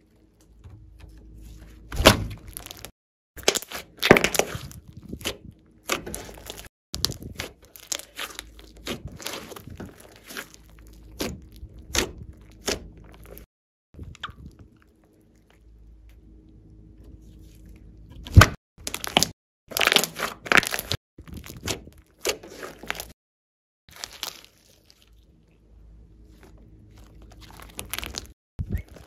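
Large lump of glossy slime squeezed, folded and stretched by hand, giving irregular clusters of wet clicks and sharp pops as trapped air pockets burst. The loudest pops come about two, four, eighteen and twenty seconds in.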